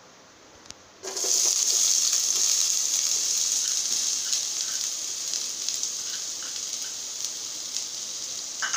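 Chopped onion dropped into hot oil in a frying pan: a loud sizzle starts suddenly about a second in and slowly eases off, with scattered small crackles.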